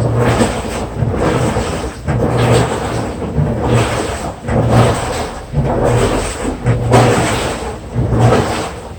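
Washing machine running through its wash, the motor humming and the drum turning in repeated surges about once a second.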